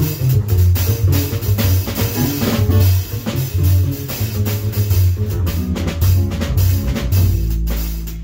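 Live jazz on archtop guitar, double bass and drum kit: the bass walks in low notes under the guitar's lines while the drums keep time on the cymbals. Near the end the bass holds one long low note.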